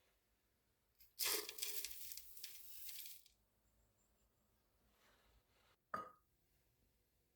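A crinkly tearing noise lasting about two seconds, then a single sharp clink of something hard set down about six seconds in.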